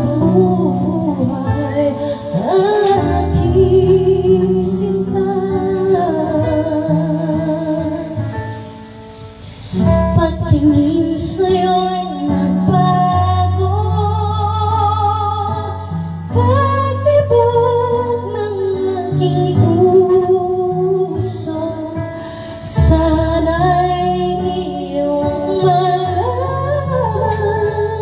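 A woman singing into a microphone over backing music, her sung lines wavering with vibrato above held low bass notes. The music falls away briefly about nine seconds in between phrases, then the singing picks up again.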